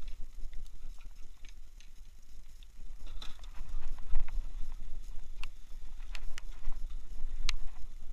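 Wind rumbling on the microphone, with scattered light clicks and taps, the sharpest one near the end.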